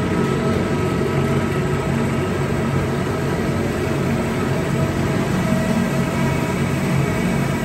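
Sheet cutting machine running with a steady mechanical hum that holds a few constant tones, with no cutting strokes.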